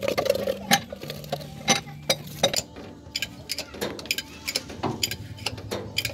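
Hand tools working on metal: sharp, irregular clicks and taps, roughly two a second.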